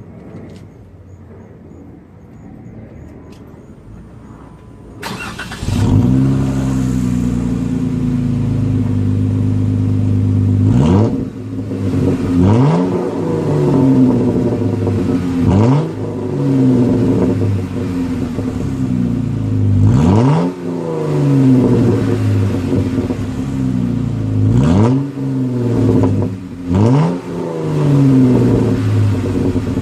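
Jeep Wrangler JK's 3.6-litre V6 with a muffler-deleted exhaust and turn-down tailpipe starts about five seconds in and settles to idle. From about eleven seconds in it is revved in a series of quick blips, each rising and falling back to idle.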